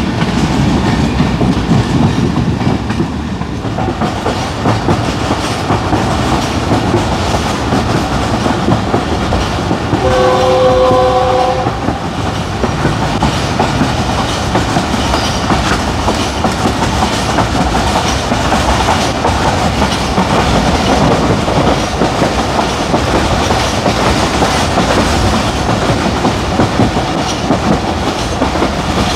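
Passenger train running, heard from inside a coach: the steady noise of the wheels on the track. About ten seconds in, the diesel locomotive's horn sounds once for about a second and a half.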